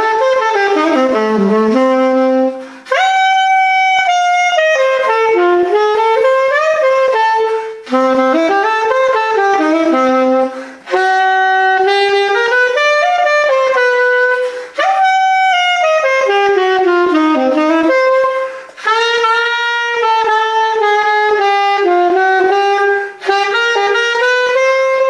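Saxophone playing a blues chorus in A, in about six phrases with short breaths between them. It works through chromatic runs, a flat-fifth line down to the four chord and a turnaround back to the one.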